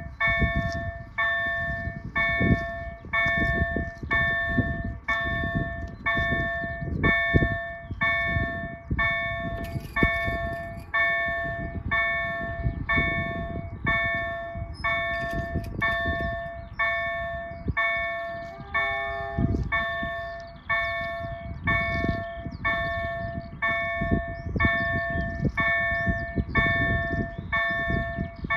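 Level-crossing warning bells, a pair of KLD-4103 electronic crossing bells, ringing at a steady beat of about one and a half metallic strikes a second. They sound the warning of an approaching train while the crossing lights flash and the barriers come down.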